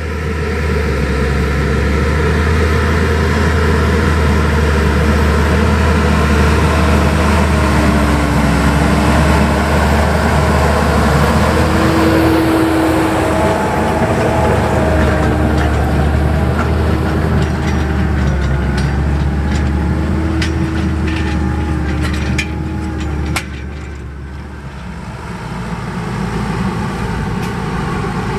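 Fendt 720 Vario tractor's engine running under load as it pulls a Maschio Attila subsoiler through the field: a steady low drone with a wavering whine above it. Scattered clicks come in the second half. The sound drops abruptly about 23 seconds in, then swells again as the tractor comes closer.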